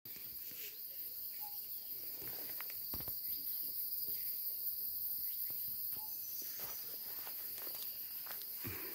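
Steady high-pitched forest insect chorus, with a few faint rustles and knocks.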